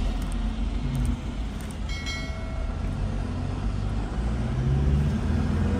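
Engine and road noise of a slowly moving vehicle heard from inside its cab, a steady low rumble. Its engine note rises near the end as it picks up speed. A short high tone sounds about two seconds in.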